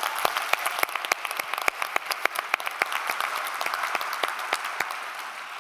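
Audience applauding, many people clapping at once, thinning out and fading near the end.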